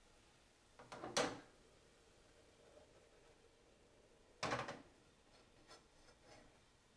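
A plastic spatula scraping and stirring scrambled eggs in a non-stick frying pan. There are two louder strokes, about a second in and about halfway, and a few fainter ones near the end.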